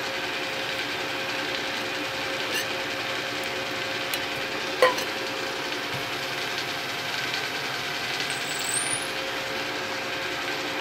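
Drilling machine running steadily with a hum of several held tones as a drill cuts into the end of a 1144 steel bar. One sharp click about halfway through, and a brief rising squeal near the end.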